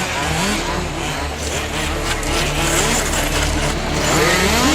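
Several 1/5-scale off-road RC cars' small two-stroke petrol engines racing at once, their pitches rising and falling as they throttle up and back off.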